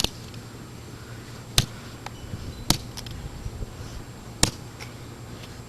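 Hammer blows striking the smashed vacuum cleaner's pieces: four sharp cracks a second or two apart, with a few fainter knocks between.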